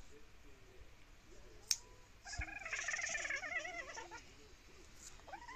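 Domestic cat giving one long, wavering protest cry for about two seconds, a little over two seconds in, while its claws are being clipped. A single sharp click comes just before it, from the nail clippers.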